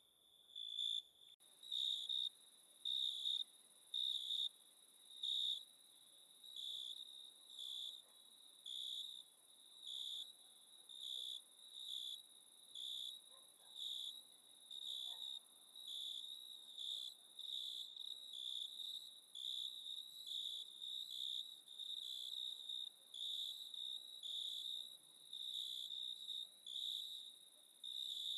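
Night insects chirping: one high-pitched chirp repeating in a steady rhythm about once a second, each chirp about half a second long, over a fainter continuous high hiss of other insects.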